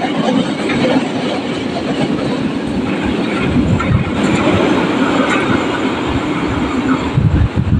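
Freight train of fuel tank wagons rolling past on the rails: a loud, steady rolling noise as the last wagons go by and the train moves off down the line.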